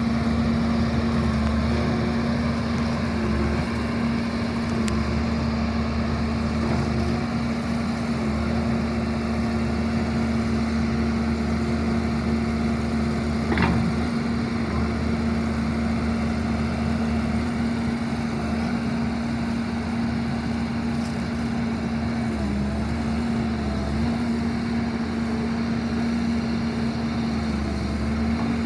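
Doosan DX160W wheeled excavator's diesel engine and hydraulics running steadily with a constant hum while the boom and arm are worked. The tone dips briefly a couple of times near the end, and there is a single sharp click about halfway through.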